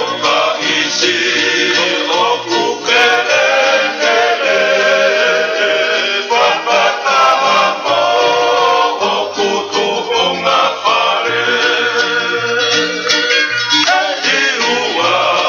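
Music: a Tongan song, voices singing over instrumental backing with a bass line stepping from note to note.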